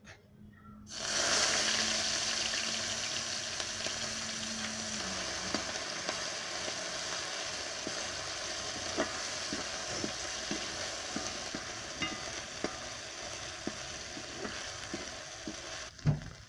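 Crushed ginger and garlic hitting hot coconut oil in a pan: a sudden loud hiss about a second in that settles into a steady sizzle, with a spoon clicking against the pan now and then as it is stirred. The sizzle dies away near the end.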